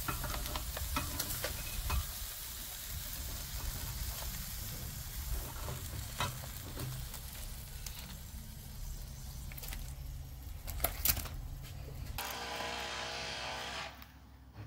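Lobster halves sizzling on a charcoal grill grate, with a few sharp clicks of metal tongs against the grate and a low rumble underneath. The sizzle drops away near the end.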